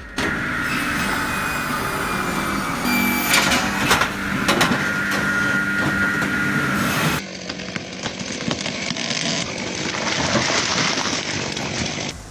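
Firewood processor sawing logs: a steady machine noise with a held whine. About seven seconds in it cuts off abruptly and gives way to a different, rougher saw noise.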